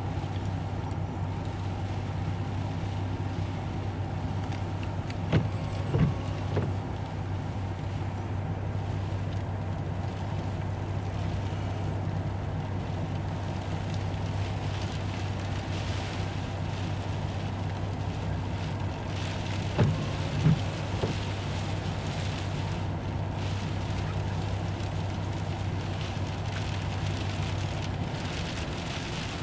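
Inside a moving car: a steady engine and road hum, with a haze of rain and snow on the windshield growing stronger in the second half. Brief knocks come in two clusters, about six and twenty seconds in, and the hum eases near the end.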